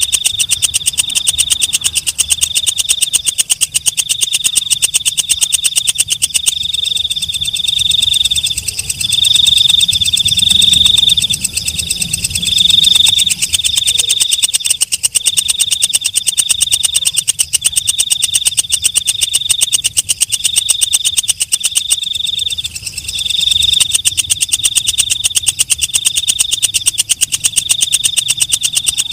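Walang kecek, a leaf-mimic katydid, stridulating: a fast ticking trill that swells into short buzzy bursts about once a second, keeping this rhythm throughout.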